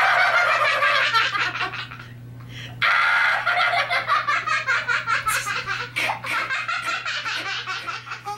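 High-pitched laughter, like a child's, in rapid fits: a long bout, a break of about a second a couple of seconds in, then another long bout that slowly fades toward the end.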